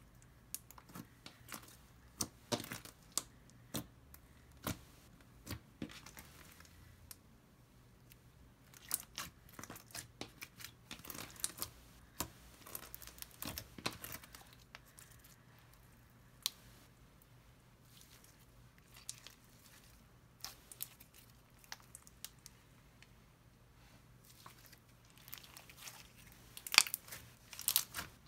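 Fishbowl slime being squeezed and worked by hand, its plastic beads crunching and the slime giving off irregular sharp crackles and pops, busiest about a third of the way in and again near the end.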